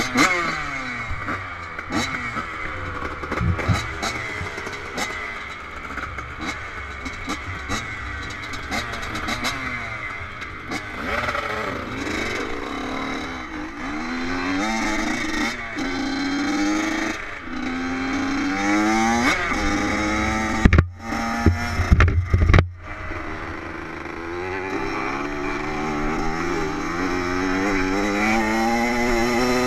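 Two-stroke dirt bike engines revving hard, the pitch climbing again and again and dropping back as the bikes accelerate away. Heavy low thumps hit the helmet-mounted microphone about two-thirds of the way in.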